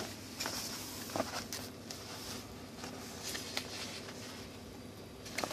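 Faint rustling and light clicks of a paper window sticker being picked up and handled.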